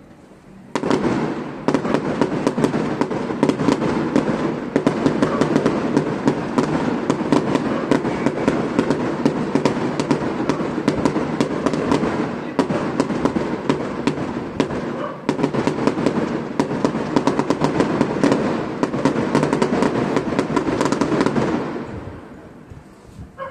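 Fireworks display: a dense run of rapid crackling pops and bangs starts about a second in, goes on for about twenty seconds, and dies away near the end.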